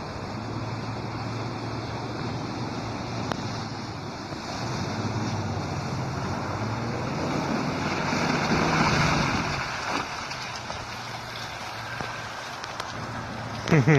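Toyota 4Runner (third generation) driving off-road through snow: engine running under steady noise from the tyres and wind, growing louder about eight to nine seconds in. A short, loud burst comes near the end.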